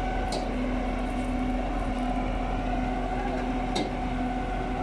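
Diesel engine of a truck-mounted concrete boom pump running at a steady speed, with two brief high hisses, about a third of a second in and near four seconds.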